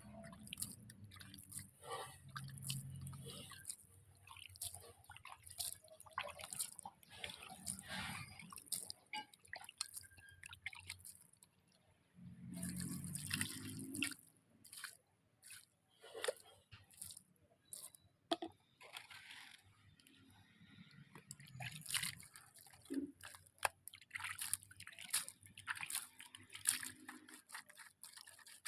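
Faint wet handling sounds: irregular drips, squelches and small clicks and knocks, with a few longer rustling stretches.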